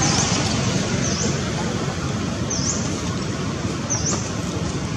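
A bird repeating a short, sharp, high chirp about every second and a half, four times, over a steady rushing background noise.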